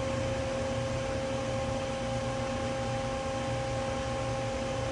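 Hydraulic power unit of a HYD-MECH V-18 Series II vertical band saw running, a steady hum with a constant whine.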